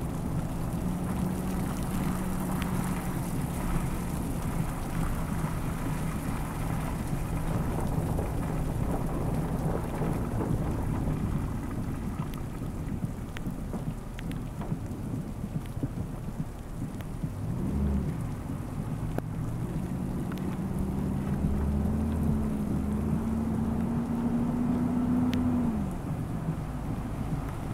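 Steady rain and muddy runoff water running along a street gutter. In the second half, a low engine hum, likely from a vehicle, rises in pitch and cuts off near the end.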